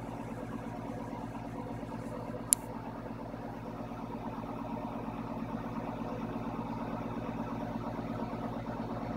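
Steady low mechanical hum of a running motor, with a single sharp click about two and a half seconds in.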